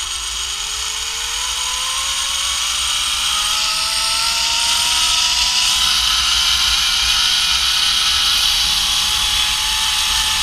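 Zipline trolley pulleys running along the steel cable. Their whine rises steadily in pitch as the rider picks up speed, with a rushing hiss that grows louder partway through.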